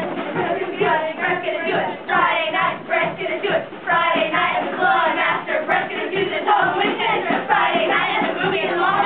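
A group of voices singing a show tune together, a musical-theatre number performed live on stage.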